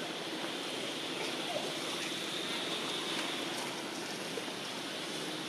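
Steady outdoor background noise: an even hiss with a constant high drone running through it and no distinct event standing out.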